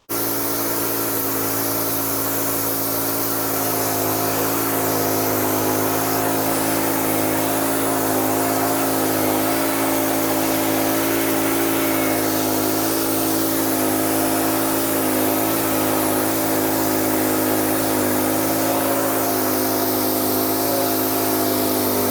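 Wood-Mizer LT15 portable band sawmill running steadily, its band blade sawing a first cut through a large black cherry log.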